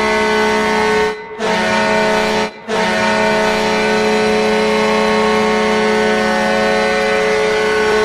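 Hockey arena goal horn (the former Atlanta Thrashers horn) blasting: a loud, steady low horn tone broken by two short gaps about a second and two and a half seconds in, then held.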